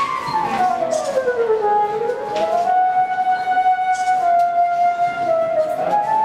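Theremin bollard's electronic tone, one continuous pitch that the player's hands bend. It slides down over the first two seconds, swoops back up and holds nearly level, then rises again near the end.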